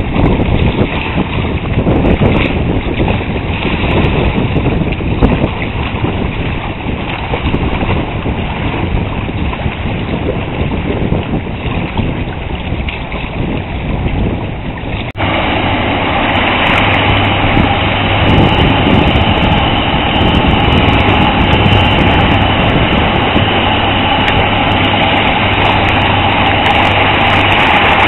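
A tugboat's diesel engine running under way, with wind buffeting the microphone and water rushing off its bow wave. About halfway through the sound jumps to a louder, steadier engine drone as the tug passes close by.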